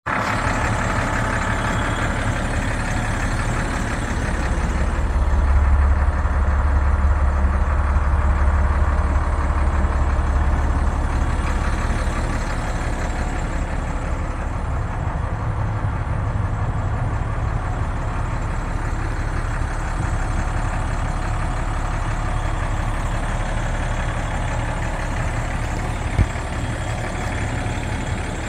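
Medium-duty fire rescue truck's engine idling steadily, its low rumble swelling for several seconds in the first half and then easing back. A single sharp click near the end.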